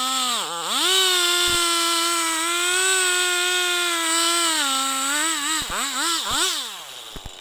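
Two-stroke chainsaw running at high revs while ripping through a log in an Alaskan-style chainsaw mill, its pitch dipping briefly under load about half a second in. Near the end the throttle is blipped a few times and the engine drops away toward idle as the cut finishes.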